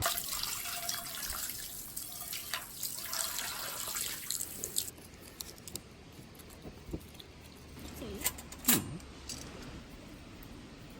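Water running and splashing for about five seconds, then a few scattered clicks and a sharp knock.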